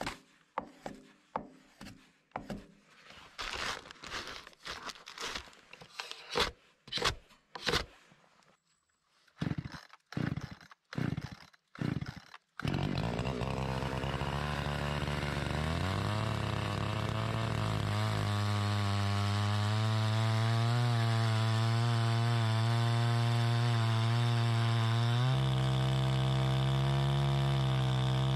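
A run of short knocks and rasps, then a small engine starts about twelve seconds in. It climbs in pitch a few seconds later and runs steadily with a slightly wavering pitch. Its note shifts near the end.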